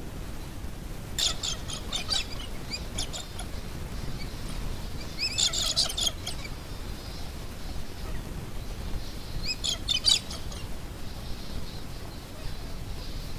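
A flock of finches chirping in three bursts of quick, high calls: about a second in, around five seconds in, and near ten seconds in.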